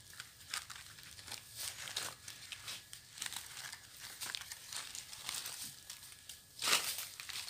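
Dry leaf litter rustling and crackling as a person moves about in rubber boots: a string of small, irregular crackles with a louder burst near the end.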